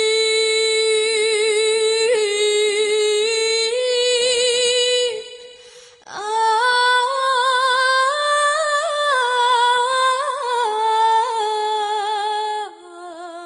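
Background music: a wordless voice humming a slow melody in two long phrases with vibrato, the first held on one note, the second rising and falling before settling on a lower note.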